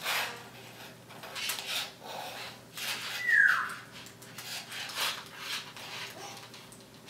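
Typing on a MacBook Pro laptop keyboard: irregular key clicks. About three seconds in, a pet parrot gives one loud, short falling whistle.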